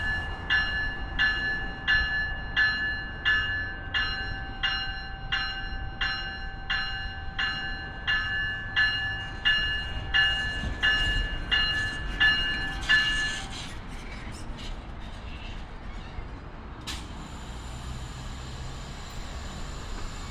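A railway bell ringing in even strokes, a little under two a second, over the rumble of an NJ Transit commuter train. The bell stops about two-thirds of the way through, leaving the train running, then a sharp click and a thin high-pitched squeal near the end.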